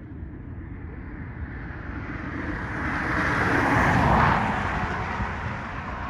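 A road vehicle passing by: a rushing noise that swells to its loudest about four seconds in and then fades, over an uneven low rumble of wind on the microphone.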